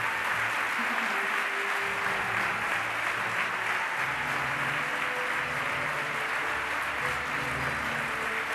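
Audience applauding steadily, with background music; low bass notes come in about four seconds in.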